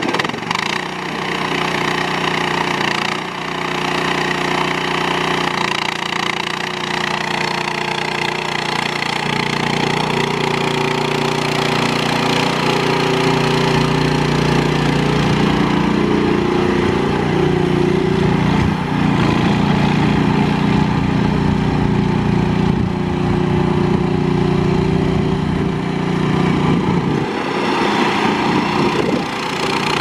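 Engine of an EGN EG360 stand-on tracked mini skid steer running as the machine is driven. The note holds steady but shifts a few times, heavier and lower through the middle stretch and easing back near the end.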